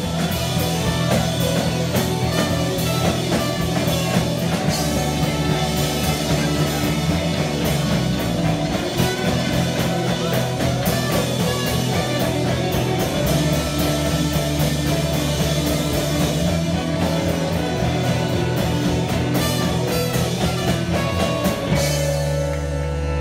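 Live rock band playing an instrumental passage on electric guitars, bass and drum kit, with trumpet and saxophone. About 22 seconds in, the drums stop and a held chord rings out.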